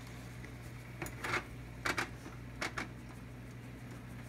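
Seasoning salt being shaken from a shaker into a pot of broth: about five short shakes between about one and three seconds in, over a low steady hum.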